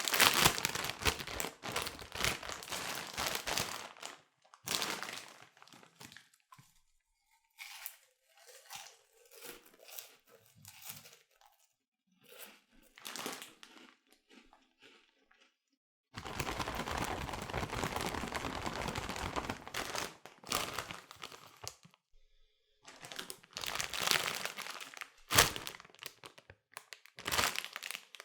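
Bag of Cheetos being opened: the crisp packet crinkles and tears in irregular bursts. Louder handling comes at the start, again past the middle and near the end, with softer, scattered rustling in between.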